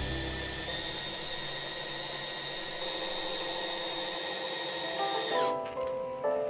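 Cordless drill-driver running steadily while boring into the end grain of a wooden post, a high-pitched motor whine that winds down and stops about five seconds in. Background music plays throughout and is left on its own near the end.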